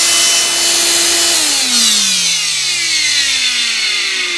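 Wet/dry shop vacuum running as a blower, switched off about a second and a half in. Its motor whine and air rush then fall steadily in pitch as it spins down.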